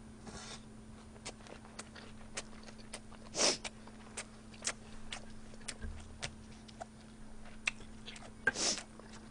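Close-miked chewing of a mouthful of buldak stir-fried ramen noodles: a run of small wet mouth clicks, with two short puffs of breath, one about three and a half seconds in and one near the end. A faint steady hum sits underneath.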